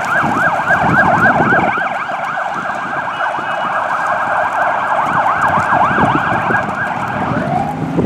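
Fire engine siren in a fast rising-and-falling yelp, several sweeps a second, over the rumble of the truck's engine and road traffic; the siren stops near the end.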